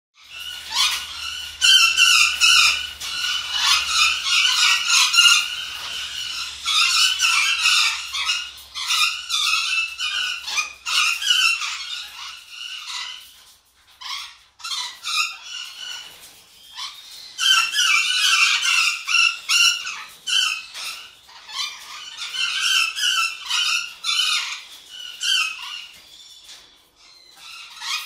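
Golden conure chattering, a rapid run of short squeaky calls in bouts with brief pauses, the longest around the middle.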